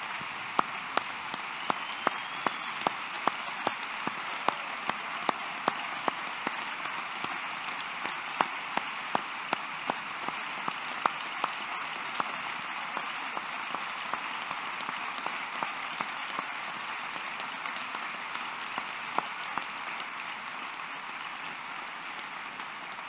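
Large audience applauding steadily, with one pair of hands clapping sharply close to the microphone about twice a second through the first half. The applause eases a little near the end.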